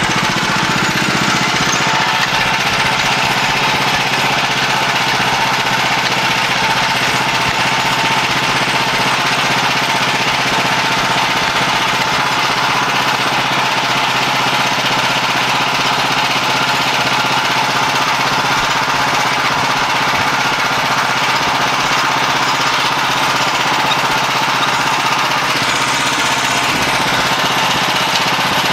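Woodland Mills HM126 portable bandsaw mill running steadily, its gas engine at working speed driving the band blade through a log to trim off a slab.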